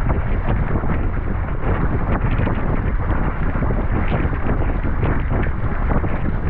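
Wind buffeting the microphone in a steady low rumble, over water rushing and splashing against the hull of a Sunfish sailboat moving under sail.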